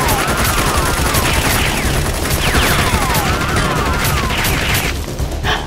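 Rapid automatic gunfire sound effects, shot after shot, mixed with falling whizzing ricochet sounds, laid over a Nerf blaster fight.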